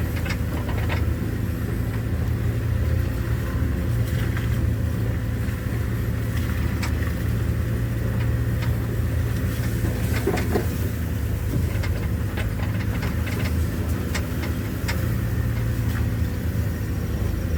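A vehicle's engine and road noise running as a steady low rumble while driving, with scattered light clicks and rattles.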